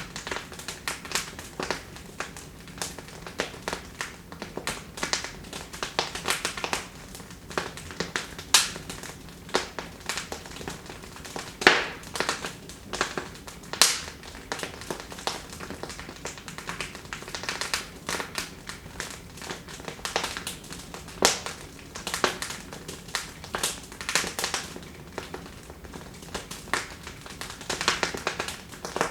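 Wood fire crackling in a fireplace: irregular sharp pops and snaps, some much louder than others, over a soft steady hiss of the flames.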